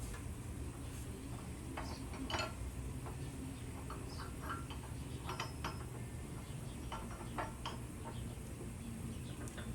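Irregular light clicks and taps of small metal parts and tools being handled, over a low steady hum.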